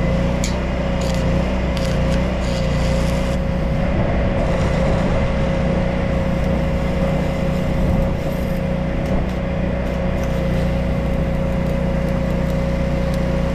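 An engine running steadily at a constant speed, a low hum with a held whine over it. A few light clicks and taps in the first few seconds.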